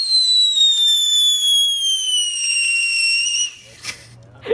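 Whistling firework shrieking with one long whistle that slides slowly down in pitch and cuts off abruptly about three and a half seconds in. Two short sharp cracks follow near the end.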